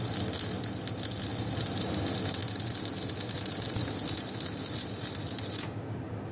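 Electric arc welding: the arc gives a steady, dense crackle and hiss, which cuts off abruptly near the end when the arc is broken, leaving a low hum.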